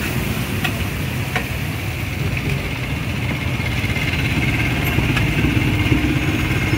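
Motorbike engines idling and passing in street traffic close by, a steady low rumble that grows a little louder near the end. A few light clicks of a metal spatula on the wok.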